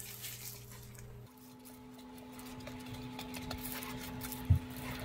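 Faint scraping and rustling of buttered breadcrumbs being pressed down into a springform pan, with a spoon and then gloved hands, with light ticks and one soft thump near the end. A steady low hum comes in about a second in.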